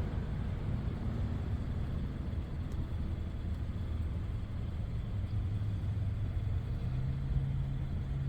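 Car engine idling with a steady low rumble; its hum rises a little in pitch near the end.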